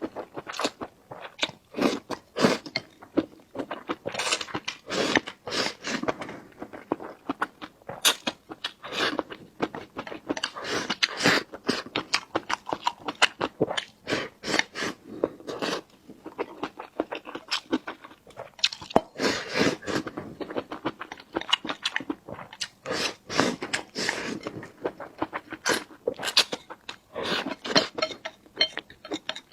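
Close-miked sounds of a person chewing food, a quick, irregular run of short mouth clicks and smacks without a pause.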